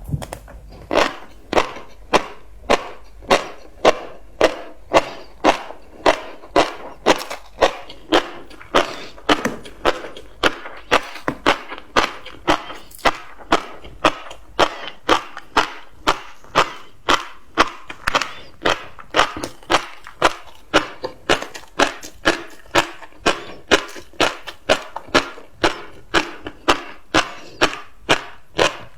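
Close-up chewing of tobiko (flying fish roe), a crisp crunch or pop with each bite in a steady rhythm of just under two a second.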